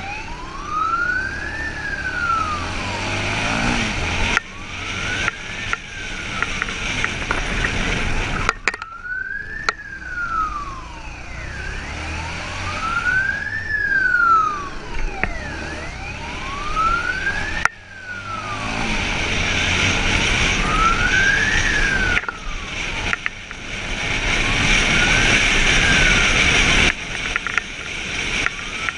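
Police siren wailing, its pitch rising and falling slowly about once every four seconds, over motorcycle engine and wind noise. The sound breaks off abruptly a few times.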